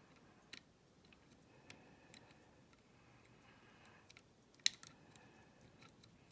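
Faint, scattered small metallic clicks and ticks of a wire pick nudging the levers of a Chubb 5-lever mortice lock, with a sharper cluster of clicks about two-thirds of the way through.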